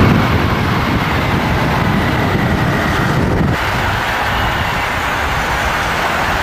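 Strong wind blowing across a camcorder microphone, a loud, steady rumbling noise that starts abruptly.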